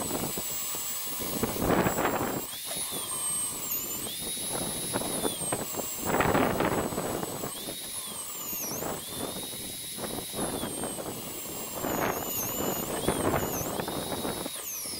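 Corded electric drill mounted in a drill press, running and boring through a thick aluminium plate. The motor's high whine holds steady but dips in pitch several times as the bit bites, with bursts of rough cutting noise about 2, 6 and 12 seconds in.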